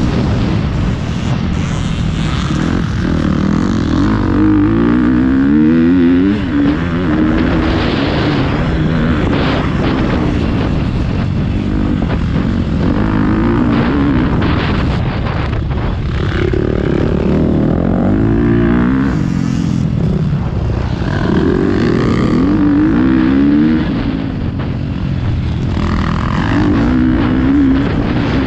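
Motocross bike engine under hard riding, its pitch repeatedly climbing and falling back as it accelerates and eases off.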